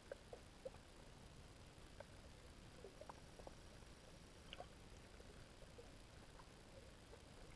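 Near silence underwater: a low steady hiss with a dozen or so faint, irregular short clicks and chirps.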